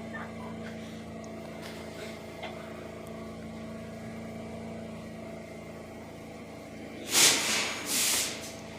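Steady electrical hum inside a stalled New York City subway car as the train tries to repower itself after losing power. Near the end come two loud bursts of hiss, the first one the louder.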